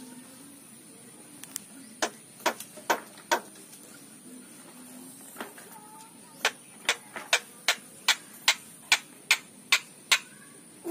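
A series of sharp knocking clicks: four in quick succession about two seconds in, a lone one a little later, then a steady run of about ten at roughly two and a half a second.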